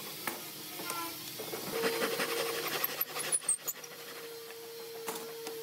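Hand saw cutting through a pine block, its teeth rasping in back-and-forth strokes. A steady faint whine holds in the background through the second half.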